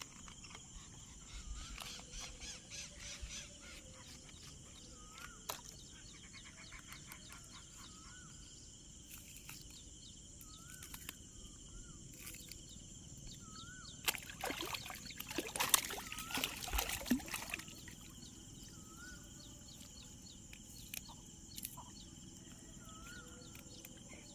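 Rural outdoor ambience: a steady drone of crickets, with a bird repeating a short rising call every couple of seconds. About two-thirds of the way through comes a louder stretch of rough, scuffling noise lasting about three seconds.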